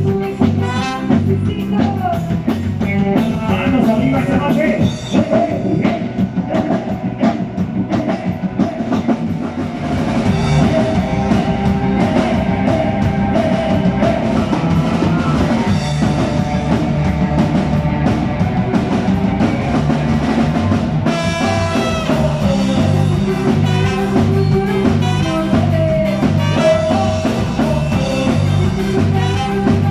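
Band music with a steady beat: drum kit and bass under guitar and a melody line.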